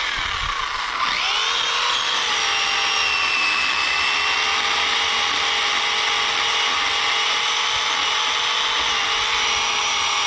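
Pole chainsaw's motor whining steadily as it cuts through a branch, its pitch sagging briefly about a second in as the chain bites into the wood, then coming back up.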